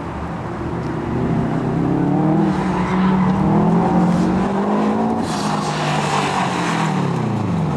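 Subaru Impreza WRX STi's turbocharged flat-four driven hard through an autocross course, revs rising and falling as it works between the cones. Tyres squeal and scrub through the later part, and the revs drop away near the end.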